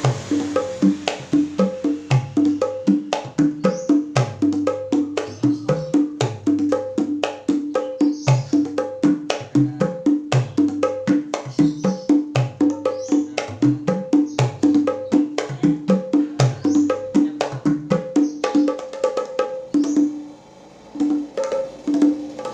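A set of five small wooden hand drums with skin heads (kempul mini), played with bare hands in a fast, steady rhythmic pattern. Ringing pitched tones alternate with deeper bass strokes, and there is a short lull about twenty seconds in before the pattern picks up again.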